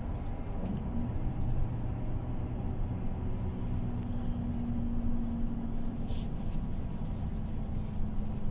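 Cabin of a MAN Lion's City Ü A20 bus on the move: the diesel engine runs with a steady low drone, its note rising about a second in and then holding. Light clicks and rattles from the interior come through over the drone.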